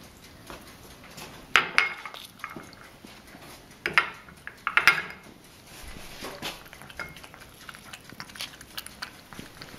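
Metal tuna can and its pressed-in lid clinking and scraping against a small glass bowl as the tuna juice is squeezed out. There are several sharp clinks, the loudest about one and a half, four and five seconds in, with lighter taps and scrapes between.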